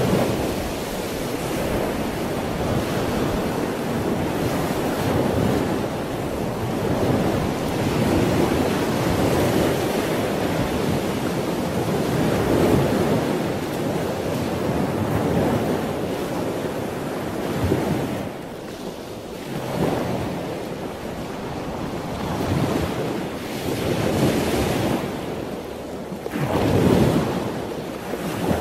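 Ocean surf: a continuous rush of waves that swells and recedes every few seconds, with a lull past the middle and a strong surge near the end.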